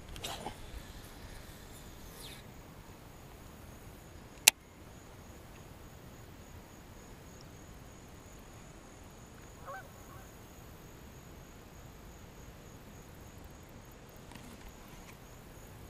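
A quiet background with a faint steady high tone. A single sharp click comes about four and a half seconds in, and a brief goose honk near ten seconds in.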